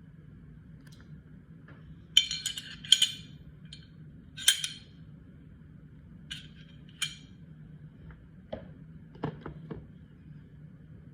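Parts of a Glock 19 Gen 5 pistol clicking and clinking as it is handled during field-stripping: a run of sharp clinks, the loudest a few seconds in, then a few duller knocks near the end. A steady low hum lies underneath.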